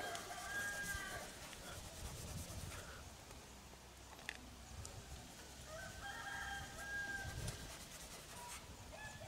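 A rooster crowing twice, faintly: once at the start and again about six seconds in.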